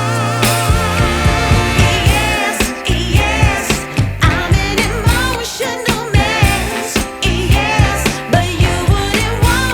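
Background music with a singing voice over a steady beat.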